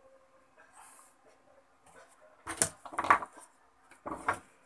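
Handling of tools and a multimeter test probe: three short knocks and clatters in the second half, over a faint steady hum.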